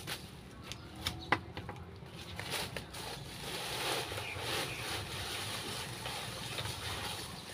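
Dry leaves rustling as they are gathered up by hand, with a few sharp knocks in the first second and a half, the loudest a little over a second in.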